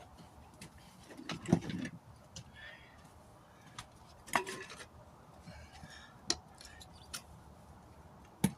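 Scattered metal clinks and knocks of hand tools being worked against a truck tire and steel rim, four sharper strikes standing out among lighter taps, as the tire bead is being broken free from the rim.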